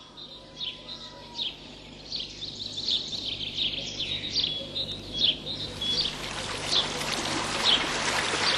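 Small birds chirping, short high calls about once a second, over running water whose rush grows steadily louder toward the end.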